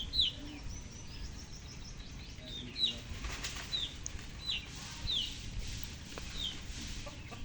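A small bird calling over and over in short, falling chirps, about one or two a second, with a stretch of rustling noise in the middle.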